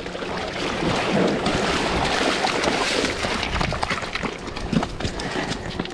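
Shallow river water sloshing and splashing at the bank, with scattered knocks and clicks, as a sockeye salmon is brought out of the water onto gravel.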